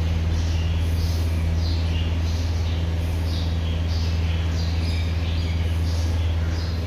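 A steady low machine hum, with short high chirps repeating about every half second over it.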